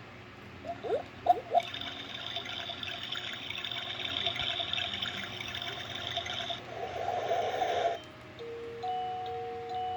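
Built-in sleep-sound speaker of an LED night-light alarm clock playing its soothing sounds. It gives a few short chirps, then a steady rush of flowing water. Near the end it changes to a tune of held notes.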